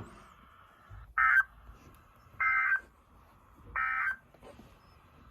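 Emergency Alert System end-of-message code: three short bursts of warbling digital data tones, spaced a little over a second apart, signalling that the alert message is over.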